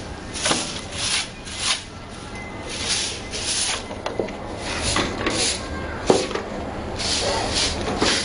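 A broom sweeping a concrete floor: a run of scratchy strokes, about one or two a second, with a single sharp knock about six seconds in.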